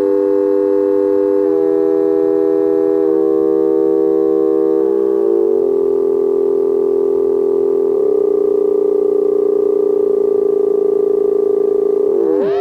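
A steady electronic sine tone from a tone generator, run through a multi-effects pedal, with a cluster of added tones above and below it that shift to new pitches in steps every second or two. Just before the end the added tones glide in toward the main tone and jump to a new, wider set.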